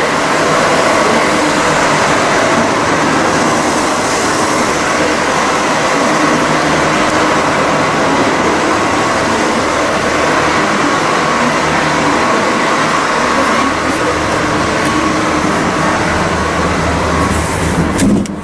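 Steady interior running noise of a Renfe series 447 suburban electric multiple unit, an even rushing din with a few faint steady hums. The noise drops suddenly near the end.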